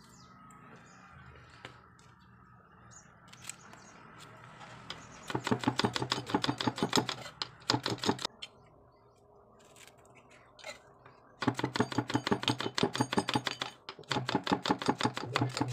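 Kitchen knife slicing okra into rounds on a wooden chopping board: quick, even taps of the blade on the wood, several a second. There are two runs of them, the first starting about five seconds in, with a pause of a few seconds between them.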